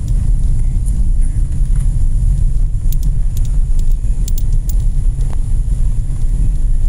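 Steady low rumble with a few faint high clicks.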